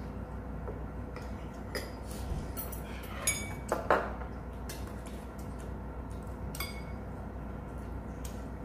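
Spoons and chopsticks clinking and scraping against stainless steel and ceramic bowls during a meal: scattered light clinks, with a louder cluster of ringing clinks about three to four seconds in.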